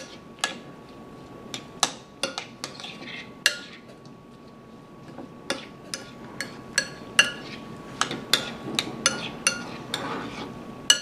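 Metal spoon stirring chopped pico de gallo in a glass mixing bowl: irregular sharp clinks of the spoon striking the glass, about two a second, over the soft rustle of the stirred tomato and cilantro.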